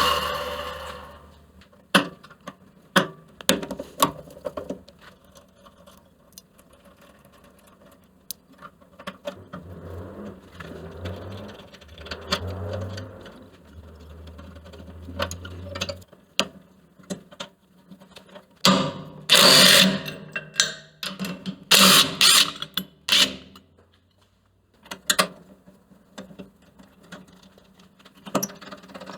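Scattered metal clicks, clanks and knocks of tools and parts being handled as a 14-inch bandsaw is taken apart, with a few louder rattling bursts about two-thirds of the way through.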